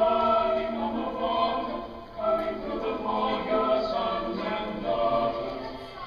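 Choral music, voices singing long sustained notes in slow phrases, with a brief lull about two seconds in.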